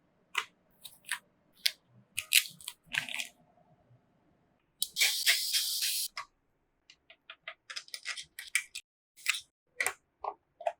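Hands handling PC parts and packaging: a run of small clicks, taps and crinkles, with a longer rustle from about five seconds in that lasts over a second.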